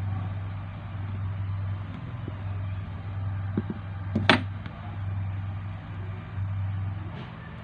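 A steady low hum that drops out briefly now and then, with one sharp click a little past the middle and a few faint ticks just before it.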